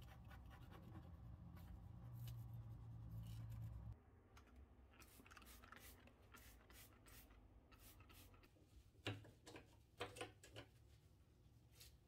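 Faint scratching and scraping at the joint between a granite countertop and the tile backsplash, with a low hum that stops about four seconds in. Then a trigger spray bottle squirts cleaner onto a gas cooktop several times, with a few louder sharp sounds near the end.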